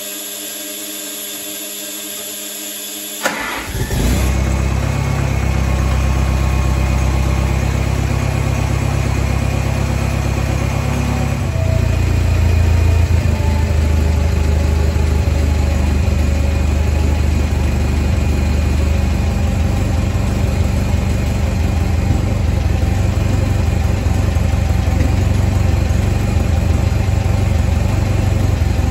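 1963 Oliver 550 tractor's engine being cranked by its starter for about three seconds, then catching and running steadily; about twelve seconds in it grows louder. It is being run so the pump can fill the filter and purge air from the freshly refilled hydraulic system.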